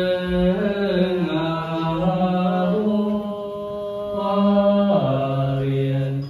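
A Buddhist monk chanting into a microphone: long held notes on a single voice that step up and down in pitch, dropping to a lower note about five seconds in and breaking off at the very end.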